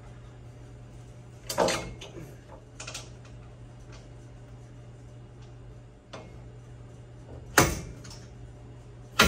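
A few separate knocks and clunks as a UTV cab's roof panel is pushed up and seated against the frame by hand, the sharpest near the end, over a steady low hum.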